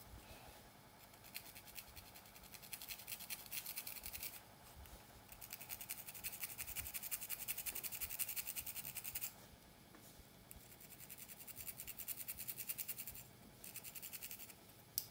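Wooden three-pronged pick scratching rapidly through thick hair along a part, in runs of quick strokes a few seconds long with short pauses between, and a single sharp click near the end.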